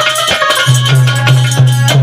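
Instrumental passage of a Hindi devotional bhajan: a harmonium holds notes while a dholak plays long, deep bass strokes that bend in pitch, with quick jingling and rattling percussion over the rhythm.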